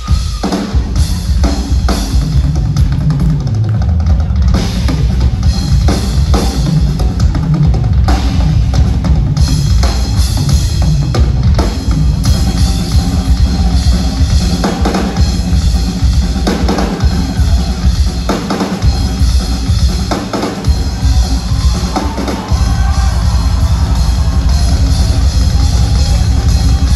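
Live drum kit solo: fast, dense playing on bass drum, snare, toms and cymbals, with a heavy bass drum throughout. About 22 seconds in, the low end gets louder and more continuous.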